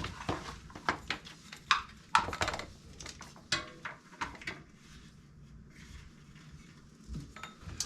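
Scattered knocks and clatter of things being handled, fairly busy for the first few seconds, then quieter, with a few more knocks near the end.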